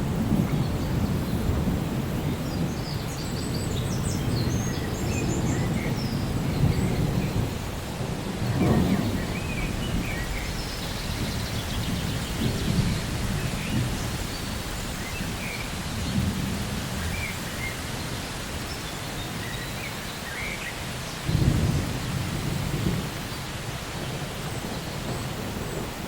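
Steady rain with low rolling thunder that swells and fades several times, with a stronger rumble about nine seconds in and another about two-thirds of the way through.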